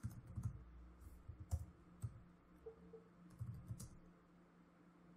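Computer keyboard typing: faint, scattered key clicks in short runs that stop about four seconds in.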